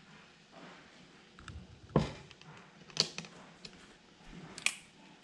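Clinks and knocks of metal plate-lifting tongs and a dish: a thump about two seconds in as the plate is set down on a wooden cutting board, then sharp clicks about a second later and near the end as the tongs come off the plate.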